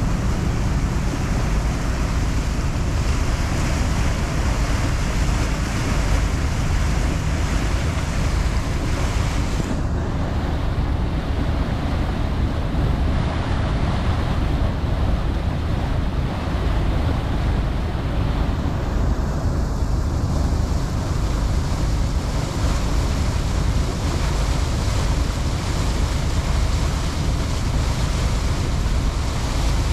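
Steady rush of wind and water on a moving boat, with wind buffeting the microphone. The hiss thins for a while about a third of the way in.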